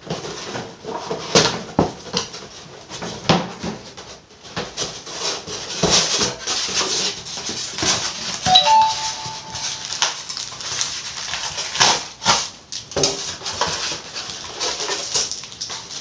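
Packaging of a helmet box being handled and opened: uneven rustling and crackling of plastic and cardboard with scattered clicks and knocks. A little past halfway, a short electronic ding of two or three notes sounds briefly.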